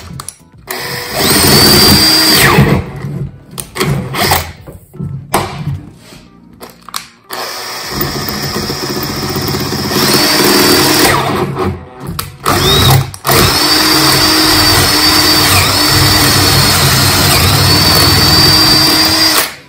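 Electric drill running in several stop-start bursts, then one longer steady run in the second half, its greased bit boring out the stripped spark-plug hole in a Husqvarna 545 chainsaw cylinder.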